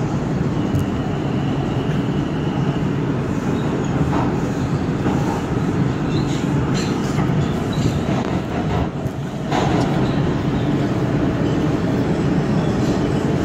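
New York City subway 4 train running at speed through a tunnel, heard from inside the car: a steady loud rumble with scattered short clicks and a faint high-pitched whine over the first few seconds.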